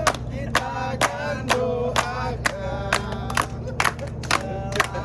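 Music with a steady beat of about two strokes a second and a chanting vocal line, over a low steady hum.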